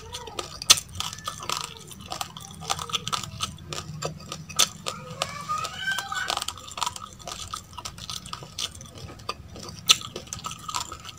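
Raw uncooked rice being chewed close to the microphone: a dense, irregular run of small crisp cracks and clicks as the hard grains are crunched.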